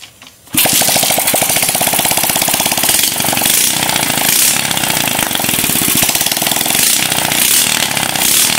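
Suzuki Smash's four-stroke single-cylinder engine catches about half a second in and runs steadily with a loud, rapid clatter. The owner puts the rattle down to a loose cam chain and a carburettor that is not yet set.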